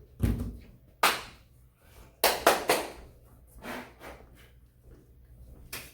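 A series of sharp knocks and thuds, about eight in all and irregularly spaced, the first the heaviest and deepest, with a quick run of three a little after two seconds in.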